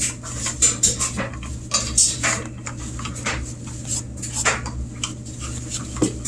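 Clattering and scraping of a plastic washing-machine drain filter being handled and cleaned off by hand: a run of irregular quick clicks and knocks over a steady low hum.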